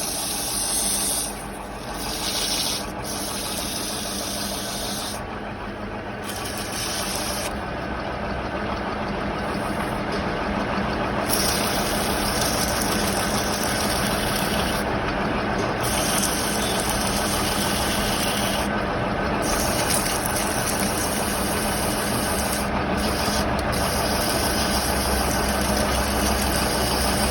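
Lathe running steadily while a piston spins in it for cleaning, with a high hiss that cuts in and out several times.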